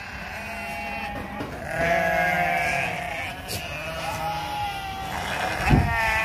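A herd of goats bleating, many wavering calls overlapping one another. Near the end there is a single dull bump.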